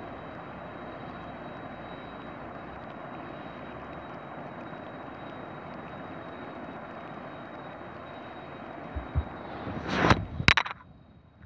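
Boeing 747-200 jet engines running at low thrust as the airliner taxis on a wet runway: a steady rushing noise. About ten seconds in, two loud thumps cut across it, and the sound then drops away briefly.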